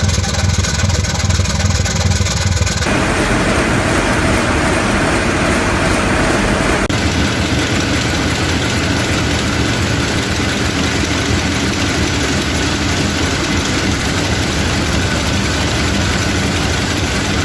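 Large old diesel engines running steadily, heavy and low, with the sound changing abruptly twice, about three and seven seconds in, as one recording cuts to another.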